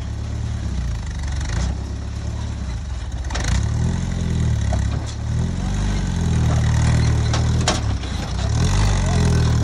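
Flat-fender jeep's engine running at low speed and revving up and down repeatedly as the jeep crawls over boulders, louder from about a third of the way in. A few sharp knocks are heard along the way.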